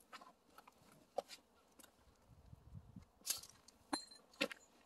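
A few faint, sharp clicks and light clinks, spaced irregularly, one of them ringing briefly.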